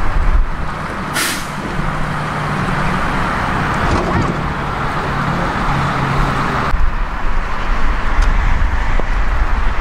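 Semi-truck diesel engines running in a truck yard: a steady low hum under a noisy rumble, with a short sharp hiss about a second in like an air brake being released. The low rumble grows heavier about seven seconds in.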